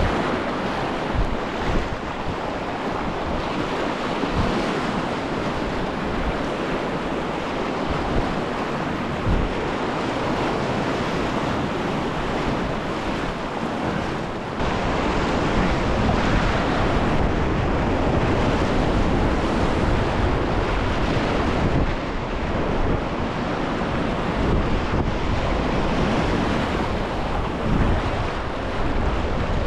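Rushing brown whitewater of a river running high after heavy rain, heard close from the bow of a packraft, with wind buffeting the microphone. It gets louder about halfway through.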